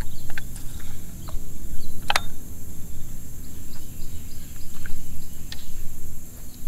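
Outdoor swamp ambience: scattered short bird chirps over a steady low rumble, with a thin high steady tone and a single sharp click about two seconds in.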